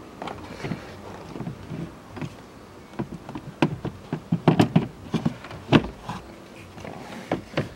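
Plastic glovebox of a 2007 Toyota RAV4 knocking and clicking irregularly as it is worked back into its slots in the dashboard, the knocks coming thickest about three to six seconds in.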